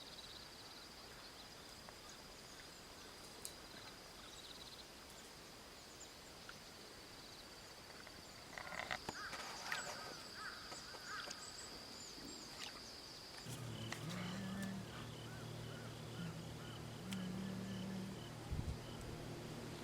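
Outdoor ambience: a steady high insect trill, with a few short bird calls about nine to eleven seconds in. About thirteen seconds in, a low steady drone starts and runs on, shifting pitch a few times.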